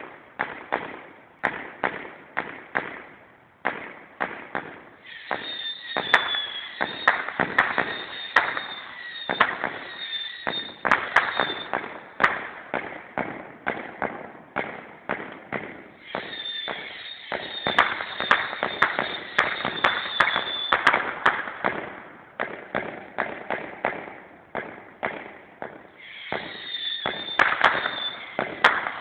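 Great Northern Fireworks 'Millennium Bug' 100-shot twin sequenced firework cake firing shot after shot, two or three a second. In three long stretches, whistling comets add a steady high whistle over the bangs.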